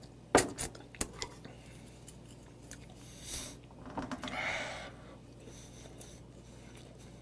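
A glass set down on a wooden table with one sharp knock, followed by a few lighter clicks of chopsticks against a plate. About three and four seconds in come two soft hissing noises.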